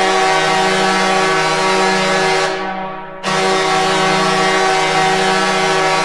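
Detroit Red Wings hockey goal horn blowing in long, loud blasts: one cuts off about two and a half seconds in and fades, then the horn sounds again under a second later.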